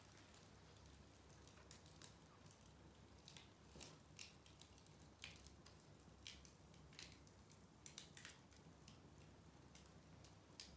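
Small wood fire crackling faintly: scattered, irregular sharp pops and ticks over a low steady hum.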